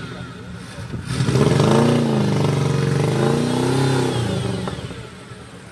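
Off-road vehicle's engine revving hard from about a second in: its pitch climbs, dips and climbs again over about three seconds, then drops back near the end.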